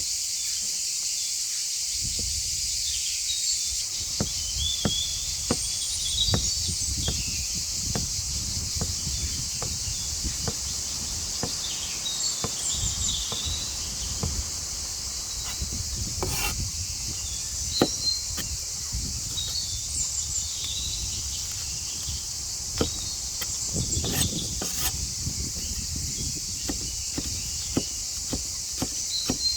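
Insects, crickets or cicadas, keep up a steady high buzz, with birds chirping now and then. From about two seconds in there are frequent small clicks and knocks throughout.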